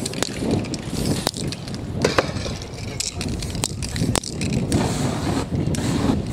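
Spray-paint cans used in short hissing bursts, with sharp clicks and knocks of the cans, over a steady rumble of street traffic.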